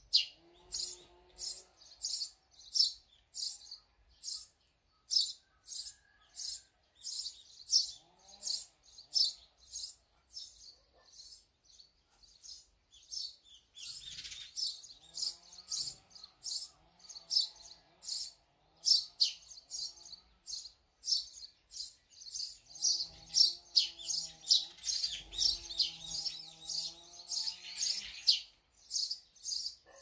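Small songbirds at a feeder chirping in quick, short, high notes, two or three a second, growing denser and overlapping in the second half.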